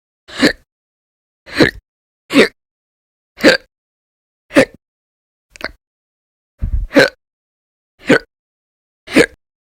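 A woman hiccuping steadily: sharp, loud hiccups about one a second, nine in all, with one coming as a quick double about seven seconds in.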